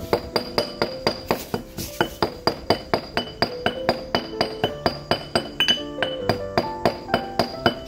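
Background music: a quick, evenly paced run of bright piano-like notes, about four a second.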